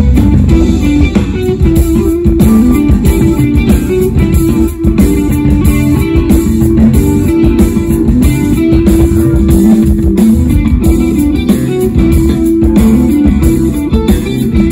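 Jazz-fusion band playing live through a PA: electric guitar over bass guitar and a steady drum kit beat.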